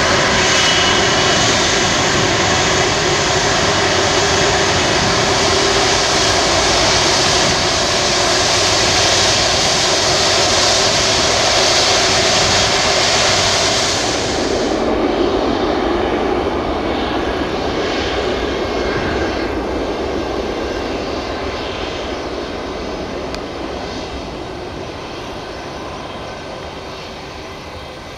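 Jet engines of a twin-engine widebody airliner, an Airbus A330, running loud on the runway. About halfway through the hiss drops out sharply and the noise fades away steadily as the jet recedes.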